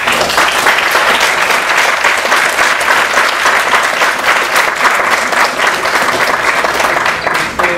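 Audience applauding: steady, dense clapping that stops fairly abruptly near the end.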